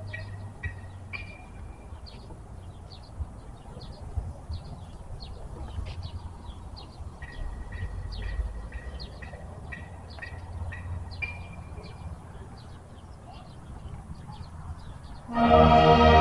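Small birds chirping, with many short calls and a few brief held whistles, over a low rumble. About a second before the end, a marching band's horns come in loud on a held chord.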